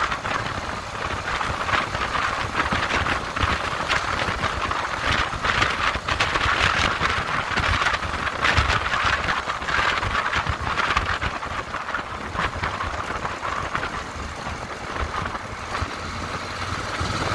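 Motorcycle ridden at road speed, its engine running steadily under a constant rush of wind noise on the microphone, with fluttering buffeting throughout.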